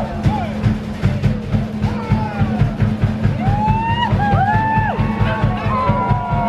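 Music with a fast, even drumbeat, with sliding high tones over it from about two seconds in.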